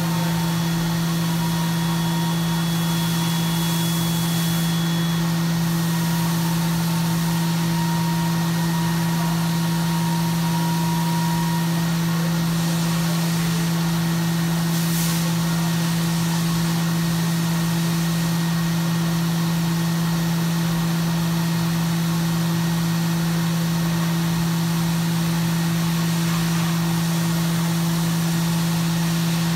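CNC milling machine running: a steady low hum and hiss, with a faint higher whine during roughly the first dozen seconds and a couple of brief hissy swells.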